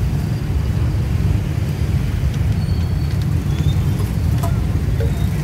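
Steady low rumble of passing road traffic, mostly motorbikes. A few faint light clinks of a metal spoon against stainless steel food trays come in the middle.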